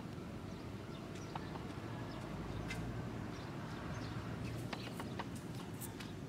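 Light, scattered footfalls of a child running in sandals on concrete, coming more often in the second half, over a faint steady outdoor background.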